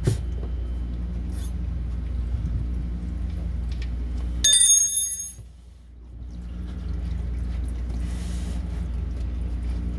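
A bright metallic ring lasting about a second, about halfway through, as of a metal tool striking metal, over a steady low hum that drops away briefly just after the ring.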